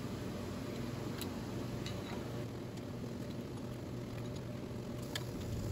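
Steady low hum and hiss of shop background noise, with a few faint metallic clicks from a socket ratchet and Allen wrench tightening the lock nuts on big-block Chevy roller rockers.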